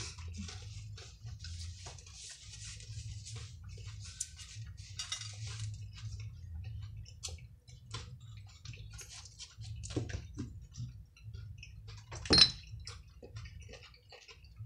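Cutlery clinking and scraping on plates, with chewing, over a steady low hum; one sharp, louder clink comes near the end.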